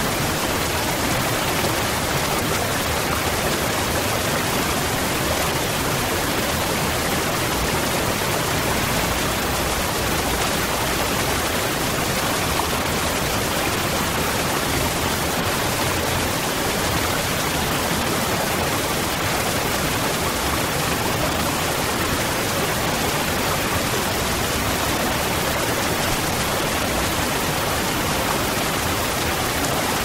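Tall waterfall plunging from a cliff: a steady, unchanging rush of falling water.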